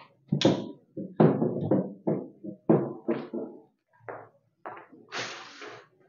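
Hen shifting about in a metal basin lined with straw: a run of short knocks and scuffs against the basin, then a longer rustle of straw near the end as she stands up.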